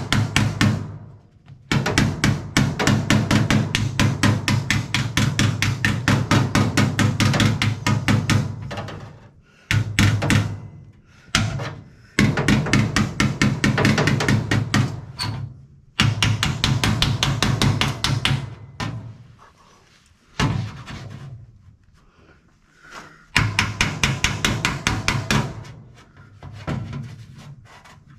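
Hammer rapidly tapping a welded sheet-steel seam against a backing bar, flattening the weld tacks so that the patch panel sits flush. The strikes come in quick runs of several seconds, broken by short pauses.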